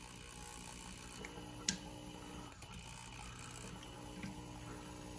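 Electric drill turning slowly, driving the Mopar flathead six's oil pump through the distributor drive to pressurise the oil system, which is holding about 40 psi. A faint, steady mechanical running with one sharp click just under two seconds in.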